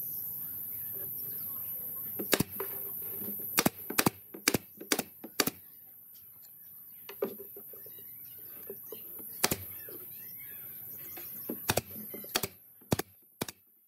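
Pneumatic brad nailer firing brads into pine boards: a string of sharp single shots, several in quick succession about half a second apart, with a few more near the end.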